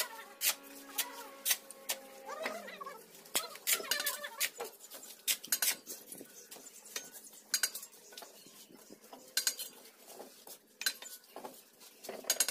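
Irregular sharp metallic clinks and taps of bricklayers' steel trowels striking bricks and scraping mortar as bricks are laid in a wall.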